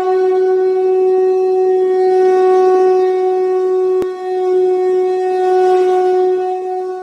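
A wind instrument holding one long, steady note with a breathy edge. It starts suddenly.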